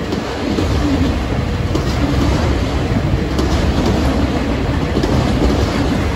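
Mixed freight train's autorack cars rolling past at close range: a steady rumble of steel wheels on rail.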